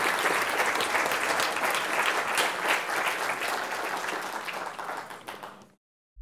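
Audience applauding with steady, dense clapping, fading out near the end.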